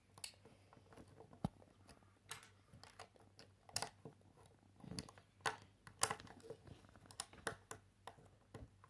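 Small plastic Lego bricks clicking and snapping as they are pressed onto a model and handled, in irregular sharp clicks with a few louder snaps in the middle.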